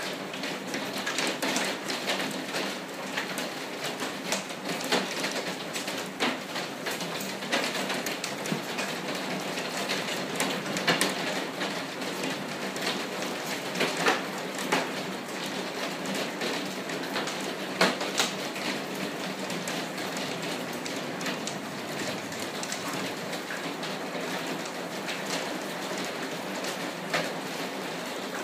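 Rain falling on a sunroom's glass roof panels, heard from inside the room: a steady hiss thick with sharp individual drop impacts, with a few louder hits near the middle.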